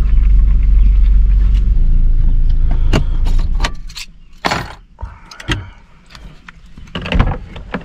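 Van driving, heard from inside the cab: a loud low road and engine rumble that breaks off about three and a half seconds in. Then a few clicks and knocks in the cab, with a short rushing noise in the middle.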